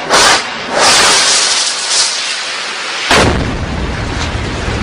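Two explosions: a sharp blast at the start, a couple of seconds of rushing noise, then a much heavier blast about three seconds in whose deep rumble carries on.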